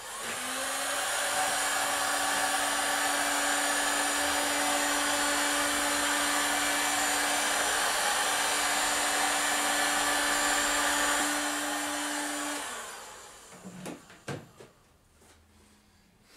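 Electric heat gun blowing hot air onto a wooden keel board to soften it for bending: a steady motor hum with a rush of air. It spins up at the start and is switched off about twelve seconds in, after which a few knocks follow.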